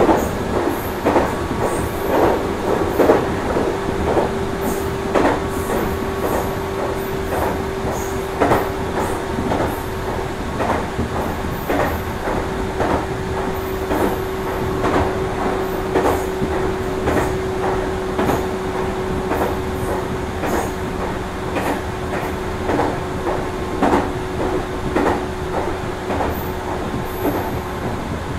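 Meitetsu 6800 series electric train running at a steady speed, a continuous running noise with a steady hum that sags slightly near the end. Repeated clicks from the wheels passing over rail joints sound throughout.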